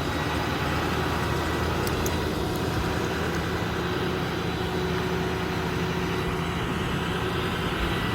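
Ford 6.4 Power Stroke V8 diesel engine idling steadily, an even low hum with no change in speed.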